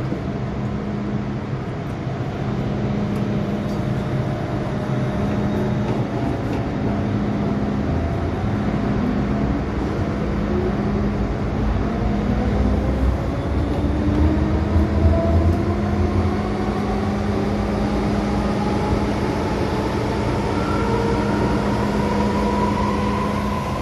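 MTR M-Train electric multiple unit heard from inside a passenger car pulling away from a station. A steady electrical hum comes first, then from about eight seconds in the traction motors' whine rises steadily in pitch as the train accelerates, over the rumble of the running gear.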